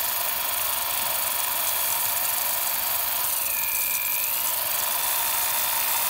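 Corded electric drill running steadily, its bit turning in a plastic bottle cap, with a short higher whine a little past halfway.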